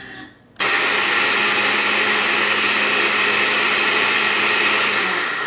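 Countertop blender mixing a milk-and-protein-powder shake: it switches on suddenly about half a second in, runs loud and steady, and is switched off near the end, its motor hum dropping as it winds down.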